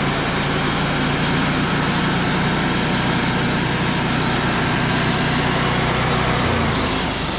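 Wood-Mizer LT35 portable band sawmill running at speed, its engine note steady under a dense hiss from the band blade. About six seconds in, the hiss thins and the engine note shifts.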